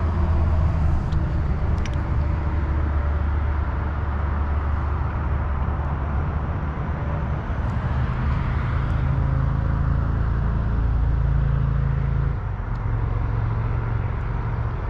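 A low engine drone running steadily, its pitch shifting slightly a couple of times.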